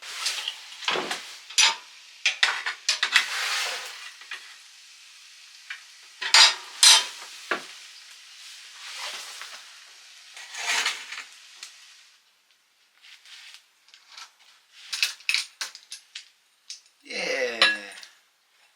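Metal objects clinking and clattering in irregular bursts as they are handled, with a short squeak falling in pitch near the end.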